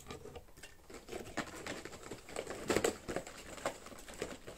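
Irregular rustling and clicking as a cardboard advent calendar box and the small cosmetic items inside it are handled and taken out, with a louder clatter a little before three seconds in.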